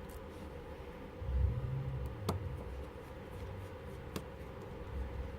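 Faint handling sounds of small tools on an open smartphone while its shield screws are being removed: a low bump a little over a second in and a few sharp small clicks of metal tool on the phone, over a steady low hum.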